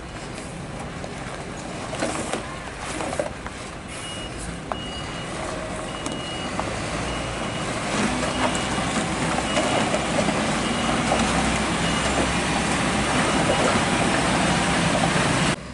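UD Quester tanker truck's diesel engine labouring on slippery mud, getting louder through the second half. From about four seconds in, a vehicle's reversing beeper sounds in a long, even run of beeps.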